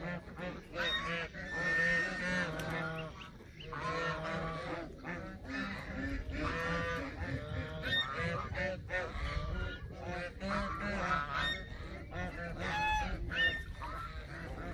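A flock of geese honking over and over, their calls overlapping with hardly a pause. A low steady hum runs underneath.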